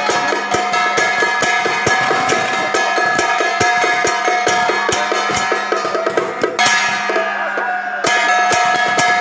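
Traditional Taiwanese procession percussion: fast, dense drum strokes over the steady ringing of gongs and cymbals. The bright cymbal layer drops out for about a second and a half near the end, then comes back in.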